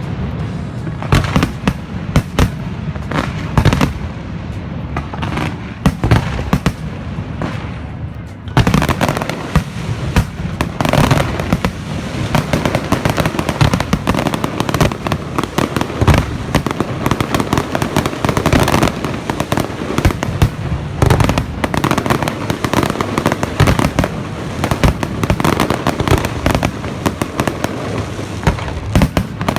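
Fireworks display: a continuous string of shell bursts and bangs, becoming a denser, brighter barrage about eight seconds in.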